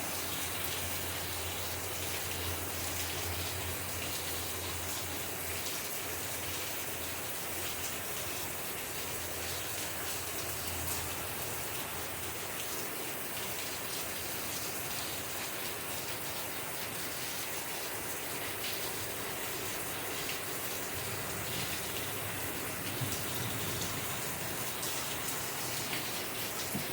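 Steady rain falling, an even hiss flecked with small drop ticks, over a faint low hum that fades out after the first ten seconds or so.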